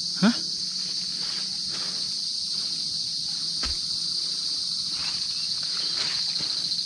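Steady, high-pitched chorus of forest insects, an even pulsing buzz. A short voice sounds right at the start, and a single click comes about halfway through.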